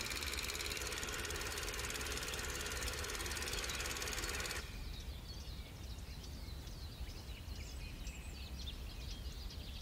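Steady static hiss, a TV-noise glitch effect, that cuts off about four and a half seconds in. Then faint outdoor ambience with scattered bird chirps over a low hum.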